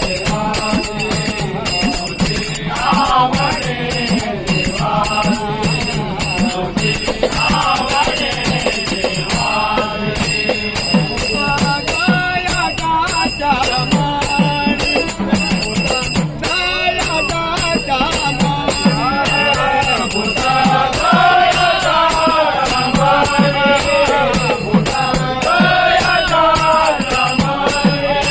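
Marathi devotional bhajan: a solo voice singing a melodic line over fast hand-drum strokes and continuous jingling of small cymbals or bells.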